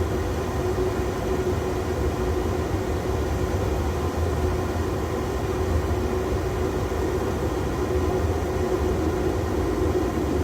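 Steady flight-deck noise of an Airbus A330 taxiing with its engines at idle: a low rumble under a steady hum.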